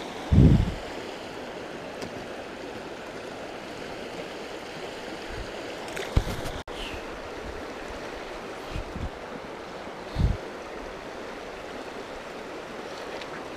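Shallow, rocky creek flowing steadily over stones and riffles, with a few brief low bumps on the microphone about half a second in, around six seconds, near nine seconds and at about ten seconds.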